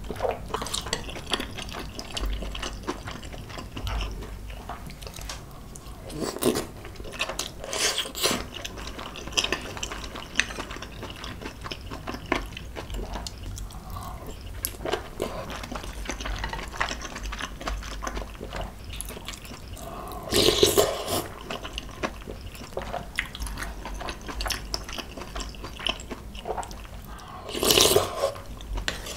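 Close-miked eating sounds of noodle soup: wet slurping of kalguksu noodles and broth, with chewing between. Several short, louder slurps stand out, the loudest about two-thirds of the way through and near the end.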